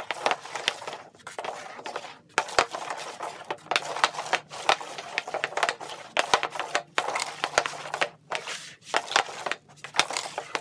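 Hockey stick blade scraping and clacking on a concrete patio as pucks are pulled and shot one after another: a fast, uneven run of sharp knocks and clicks with short pauses between shots.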